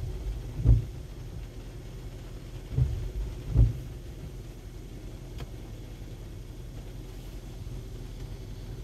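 Steady low rumble inside a car stopped in heavy rain, broken by a few dull low thumps in the first four seconds.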